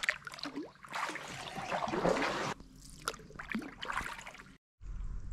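Kayak paddle strokes: the blade dipping and splashing, with water trickling and dripping off it, in two spells of strokes. The sound cuts out briefly near the end.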